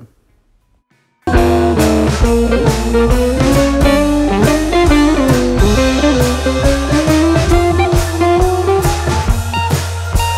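Background music with guitar and drums keeping a steady beat. It comes in suddenly about a second in, after a short silence.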